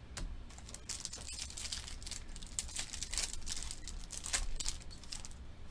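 Foil wrapper of a Panini Select basketball card pack torn open and crinkled by hand, in a run of irregular rustles that are loudest a little past halfway and again near the end.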